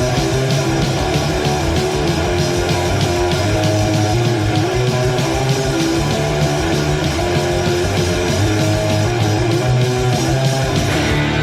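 Heavy metal band playing: distorted electric guitar riffing over rapid, driving drums. Near the end the drum hits stop and a sustained guitar chord rings on.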